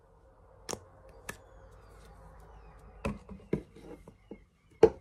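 Handling noise from a small plastic scent bottle and the phone being moved: a few sharp clicks and knocks, spaced out, with a cluster about three seconds in and the loudest knock near the end.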